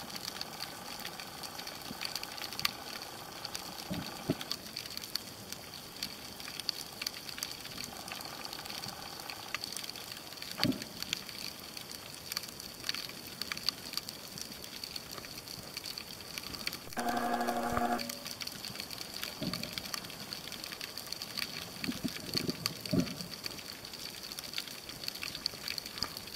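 Underwater ambience picked up by a submerged camera: a constant crackle of fine clicks with a faint steady high whine, a few dull thumps, and a short pitched tone lasting about a second near the 17-second mark.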